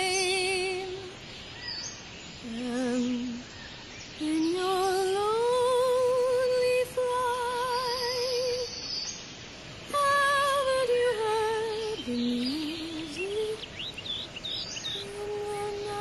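A woman's voice humming a slow, wordless melody, holding long notes with strong vibrato and sliding up between them in long glides, with two short breaks. A few short bird chirps come in near the end.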